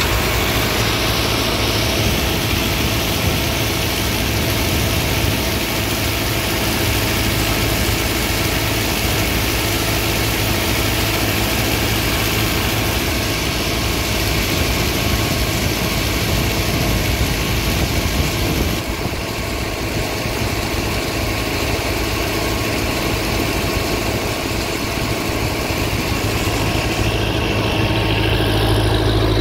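An engine running steadily, with a low hum under a broad, even noise; the sound thins slightly in the upper range about two-thirds of the way through.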